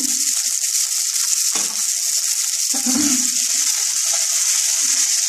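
Sliced onions, crushed garlic and whole spices sizzling steadily in hot oil in a nonstick frying pan.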